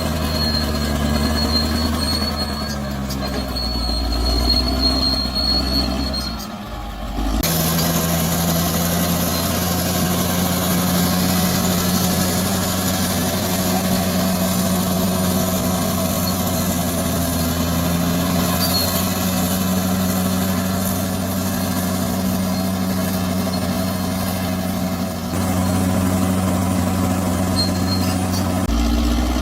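Bulldozer's diesel engine running steadily. The sound changes abruptly about seven seconds in, and from then on a bright high hiss runs over the engine.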